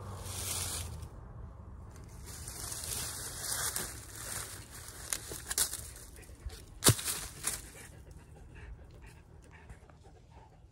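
Rustling and crunching in dry leaf litter, with scattered light clicks and one sharp click about seven seconds in.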